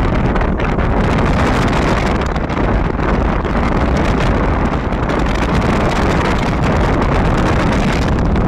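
Steady rushing road and wind noise of a car driving uphill, with wind buffeting the microphone.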